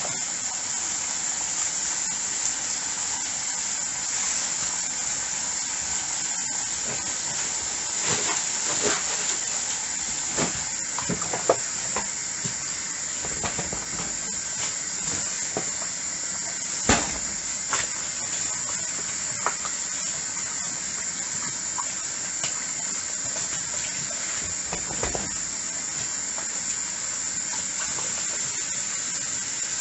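Tap water running steadily into a sink during dishwashing, with scattered clinks and knocks of dishes, the sharpest about halfway through.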